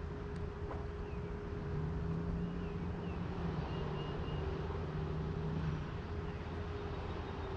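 Steady, distant engine drone, with a second, lower hum joining for a few seconds in the middle.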